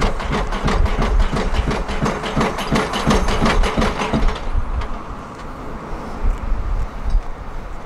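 Hydraulic impact hammer of a Junttan pile-driving rig pounding a pile into the ground in a fast, even rhythm of blows, stopping about four seconds in. After that the rig's engine keeps running more quietly.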